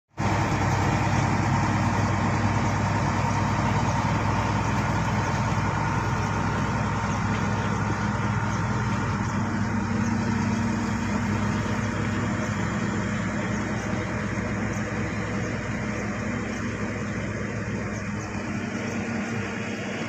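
Shantui crawler bulldozer's diesel engine running steadily while the machine works and moves in mud. It fades slightly as the dozer backs away.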